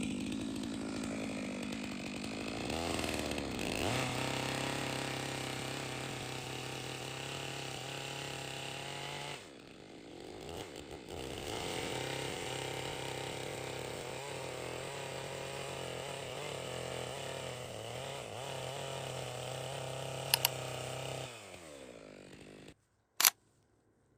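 Chainsaw revving up and running at a steady high speed, with a brief drop about ten seconds in. The engine then winds down and cuts out near the end, followed by a sharp click.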